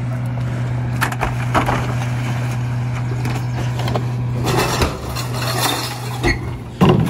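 Recyclables clattering and clinking as blue recycling carts are tipped by hand into a split rear-loader garbage truck's hopper, over the truck's steady diesel idle. The loudest clatter comes near the end.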